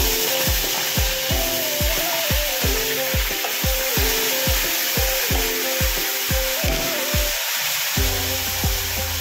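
Chopped onion sizzling steadily in hot oil in a wok, over background music with a steady beat.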